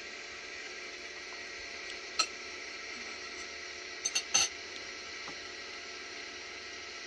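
Forks and tea glasses clinking against plates and saucers: one sharp clink about two seconds in, then three quick clinks around four seconds, over a steady faint hiss.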